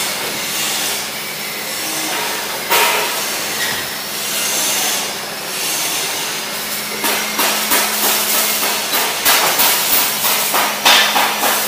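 Hammering on metal in a car body workshop. Sharp blows come two to three a second from about seven seconds in, with a single blow earlier, over a steady hiss and low hum.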